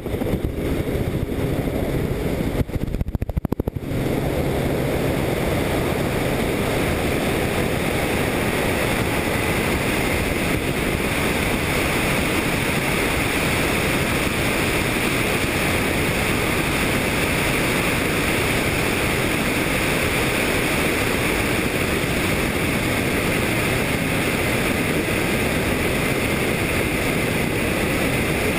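Helicopter in flight: steady engine and rotor noise under heavy wind rush across the microphone, with a brief dip about three seconds in.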